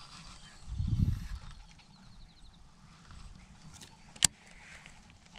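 Baitcasting reel clicking and ticking during a cast: a short run of quick ticks around two seconds in and one sharp click a little past four seconds, the loudest sound. A low rush of noise comes about a second in.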